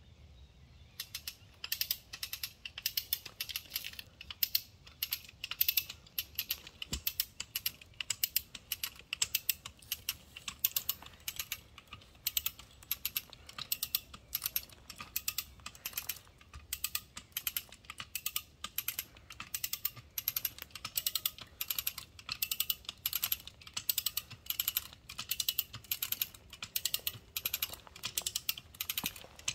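Hand-operated ratchet cable puller clicking in a steady rhythm, roughly two sharp clicks a second, as it hauls a boulder out of the ground by its steel wire cable. The clicking starts about a second in.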